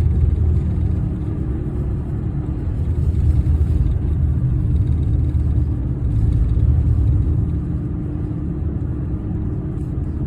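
Pickup truck driving on a snowy road, heard from inside the cab: a steady low rumble of engine and tyres with a constant hum.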